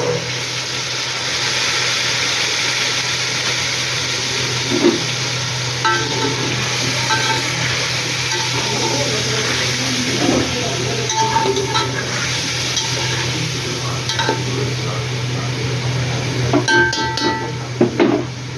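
Food sizzling in hot oil in a cooking pot while it is stirred, with a metal spoon clinking and scraping against the pot several times, the most around the end. A steady low hum runs underneath.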